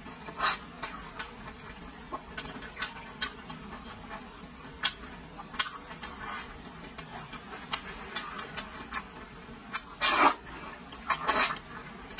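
Close-miked chewing and wet lip-smacking while eating braised pork ribs: short, sharp mouth clicks at irregular intervals, with a louder cluster of smacks about ten seconds in.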